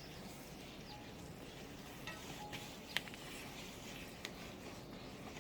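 Faint outdoor ambience: a soft, even hiss with a few scattered sharp ticks, the sharpest about three seconds in.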